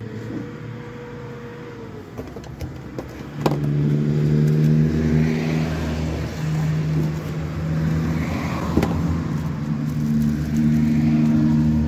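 A motor or engine running steadily, becoming much louder about three and a half seconds in, with a plastic bag crinkling as it is handled.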